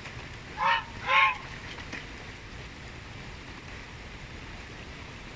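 Domestic goose honking twice in quick succession, about half a second apart, each call short.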